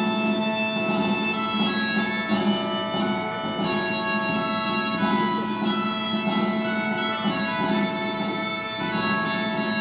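Bagpipe music: a slow melody played over a steady, unbroken drone.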